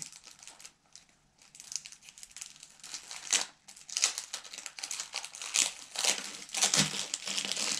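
Plastic shrink-wrap being worked loose and peeled off a perfume box: irregular crinkling and crackling, louder and busier in the second half.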